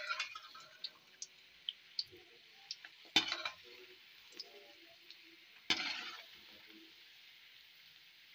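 Oil sizzling steadily around chicken drumstick kebabs deep-frying on a low flame, with small scattered pops. A metal slotted spoon knocks sharply against the pan twice, a little past three seconds in and again near six seconds.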